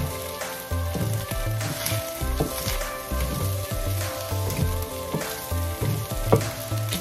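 Fried rice sizzling in a stainless steel skillet as a wooden spatula stirs and scrapes through it, with sharp knocks of the spatula against the pan, the loudest about six seconds in. A steady low beat of background music runs underneath.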